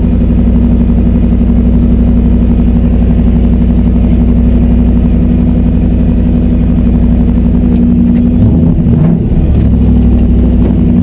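Toyota 1UZ-FE V8 with a bolt-on Vortech V1 centrifugal supercharger, stock headers, idling steadily, heard from inside the cabin. About eight and a half seconds in, the revs begin to rise and fall.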